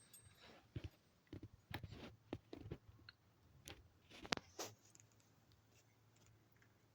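Sleeping dog making faint, short clicking sounds, a dozen or so scattered over the first five seconds.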